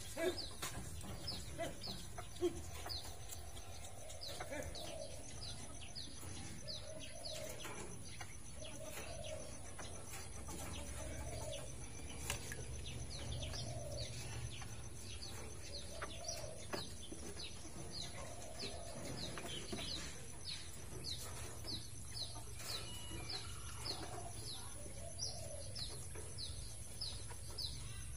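Chickens clucking in the background, with a steady run of short, high, falling chirps, about two a second.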